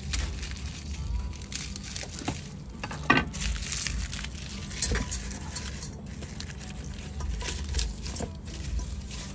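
Fresh lemongrass stalks being handled and bent into a stainless steel pot: rustling and crinkling, with scattered sharp cracks and knocks. The sharpest comes about three seconds in.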